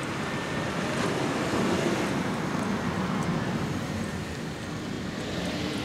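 A road vehicle passing by, its noise swelling to a peak about two seconds in and then fading away.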